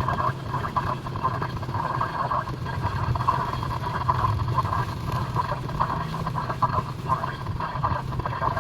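Steady road and engine noise heard inside a moving car, a constant low hum with a rougher, flickering hiss higher up.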